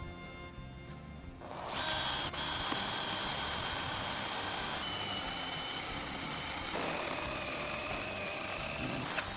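A power tool starts about a second and a half in and runs steadily with a high whine, its tone shifting twice, over background music.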